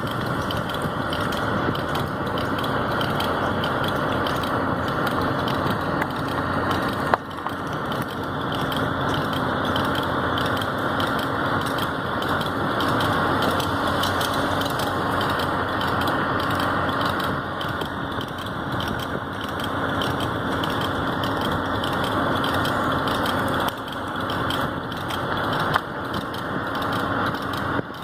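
Fast, continuous clicking from a wheel of a Honda Civic EF rolling along, over steady road and engine noise, with a couple of sharper knocks. The clicking is a wheel-end fault that a newly installed axle has not cured.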